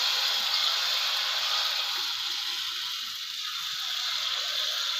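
Jalebi batter frying in a pan of hot oil as it is squeezed in: a steady sizzle.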